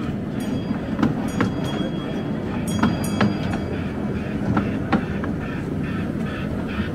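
Crowd of people milling and chattering all around, a dense steady murmur, with scattered sharp clicks and clinks sounding every second or so.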